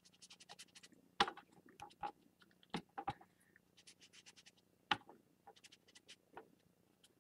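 Quiet, scattered soft taps and small clicks of a makeup sponge dabbing purple ink onto stamped paper, with a few louder taps among them.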